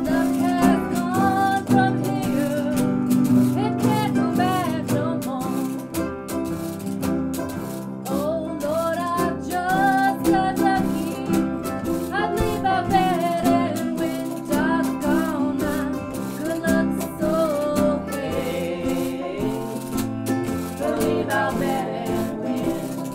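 Small band playing: acoustic guitar strumming in a steady rhythm under a wavering, sliding melody line.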